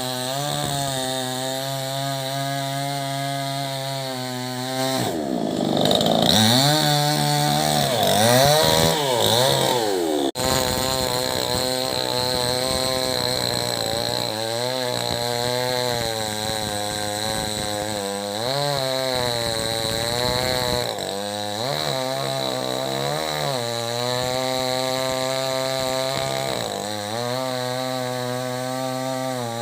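Chainsaw engine running hard, its pitch dropping and climbing back several times, with one very short break about ten seconds in.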